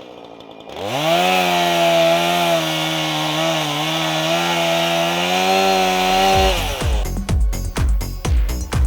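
Chainsaw engine revving up, running at high speed for about five seconds, then dropping back. Music with a steady beat comes in near the end.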